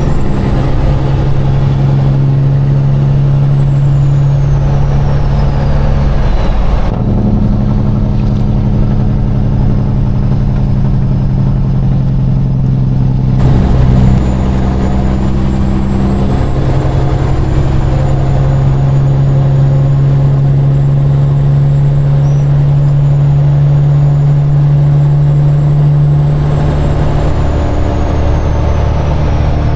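Semi truck's diesel engine running steadily on the highway, its note stepping to a new pitch about seven seconds in, again about thirteen seconds in, and once more near the end.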